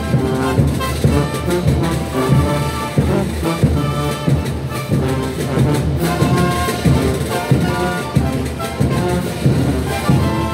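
Bolivian brass band playing a morenada: trumpets carrying the tune over sousaphone bass, with a steady, heavy beat.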